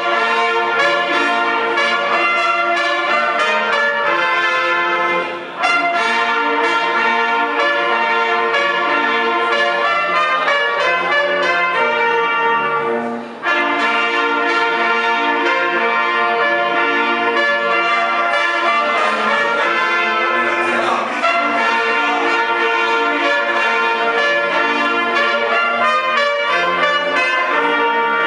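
Several trumpets playing a tune together, in phrases with brief breaks about five and thirteen seconds in.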